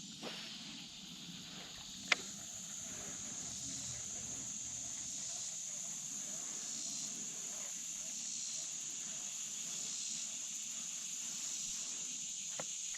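Steady high-pitched chorus of insects such as crickets or katydids, with faint slow pulses in it, and a single sharp click about two seconds in.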